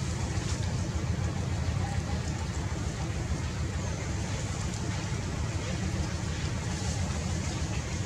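Steady low rumbling background noise with a fainter hiss above it, no clear pitch and no distinct events.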